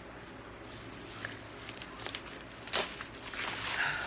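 Faint rustling and crinkling of packaging being handled, with scattered small clicks and one sharper crackle about three-quarters of the way through.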